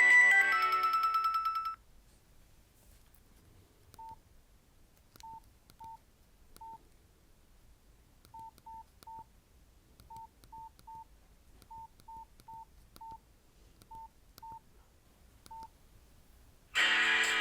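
A Nokia C2-01 polyphonic ringtone plays out and stops about a second and a half in. Then come about seventeen short single-pitch keypad beeps at irregular spacing, as the phone's keys are pressed to move to the next ringtone. Just before the end, the next ringtone starts loudly, built on strummed guitar.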